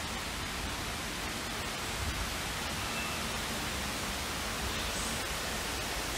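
Steady rushing noise spread evenly across all pitches, with a low rumble underneath.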